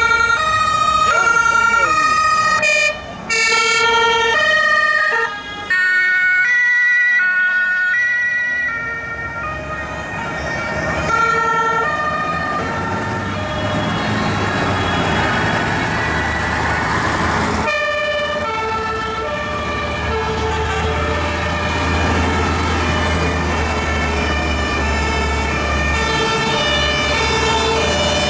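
Several fire engines' two-tone sirens sound at once, their alternating tones overlapping, as a column of fire trucks drives past. Heavy truck engines rumble underneath, growing louder in the second half.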